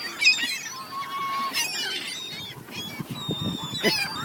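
A flock of birds squawking and honking, many short gliding calls overlapping one another.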